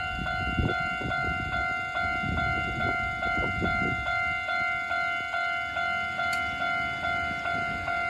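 Japanese railway level-crossing warning bell ringing steadily at about two and a half strikes a second, back to its normal sound after a spell as a single tone. A low rumble sits under it during the first half.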